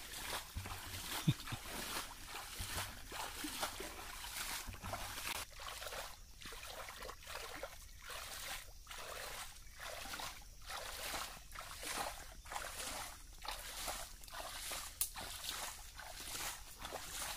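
Hands splashing and sloshing through shallow muddy water while groping for fish, a run of short, irregular splashes.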